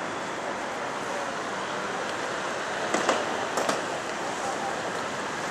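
Steady city street traffic noise, with a few short sharp clicks about three seconds in.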